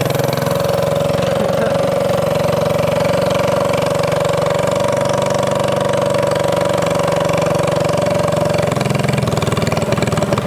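Built Tillotson single-cylinder four-stroke racing engine, newly mounted on a go-kart frame, idling steadily on its first test run.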